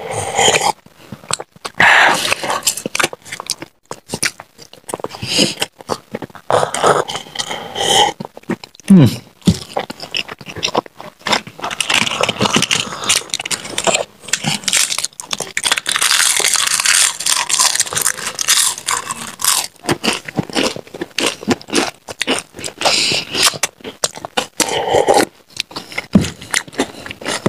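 Close-up eating sounds: many sharp, crisp crunches and chewing as fried snacks and papad are bitten. The crunching is densest through the middle of the stretch.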